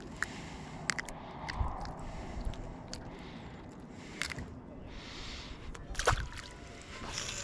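A fish released by hand splashes back into the lake water beside the boat about six seconds in. Before it come a few light clicks of handling.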